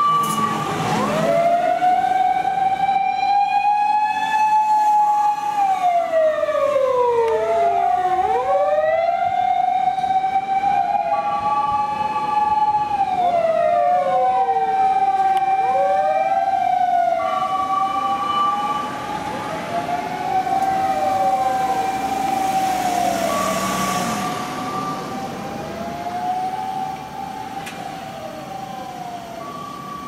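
Sirens of several Japanese fire engines on an emergency run, their rising and falling wails overlapping, with a short steady higher tone breaking in every few seconds. The sirens grow fainter over the last several seconds as the vehicles pull away.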